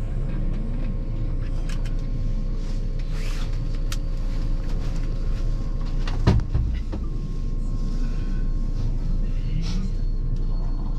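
Inside the cab of a JR 381 series electric train at a station platform: a steady low hum and rumble, with small clicks and a single sharp thump about six seconds in, as the train begins to pull away.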